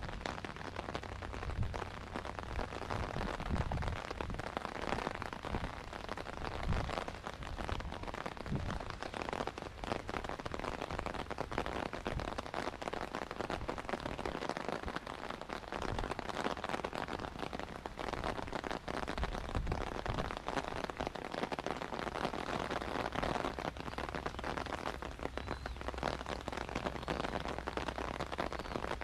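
Steady rain pattering as a dense crackle of drops, with a low rumble and occasional low thumps underneath.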